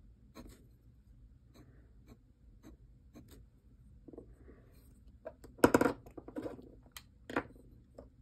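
Brass dip nib scratching short, quick strokes on paper, a string of faint ticks through the first few seconds. Then a few louder knocks and rustles of handling, the loudest about halfway through and another near the end.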